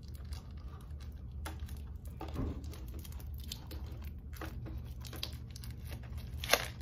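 A small cardboard toy box and the clear plastic bag inside it being opened by hand: scattered crinkling, tearing and crackling, with one sharper snap near the end.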